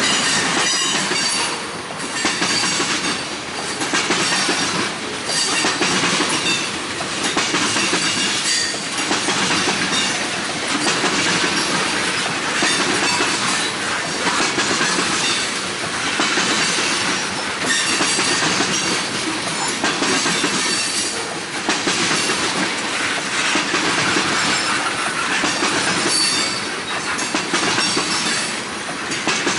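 Railroad cars rolling steadily past, their wheels clicking over rail joints. A high wheel squeal comes and goes.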